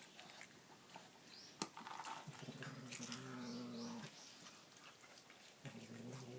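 A low, steady animal growl heard twice, each lasting about two seconds, with a single sharp click shortly before the first.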